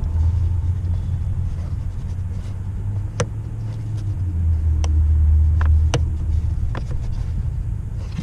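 A low, steady rumble with a few sharp clicks and taps as a plastic-handled prod is worked through the rubber wiring-harness grommet in the car's firewall.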